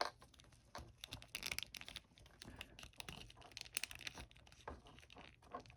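Faint, scattered small clicks, scrapes and crinkles of hard plastic being handled: an action figure's head being pulled off its neck peg and a second head fitted.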